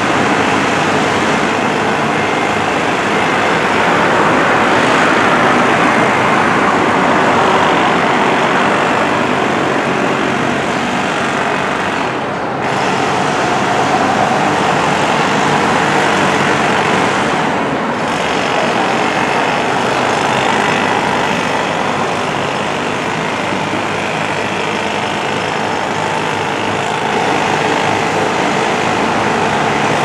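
Steady, loud outdoor background din without distinct events, with short high-pitched dips about twelve and eighteen seconds in.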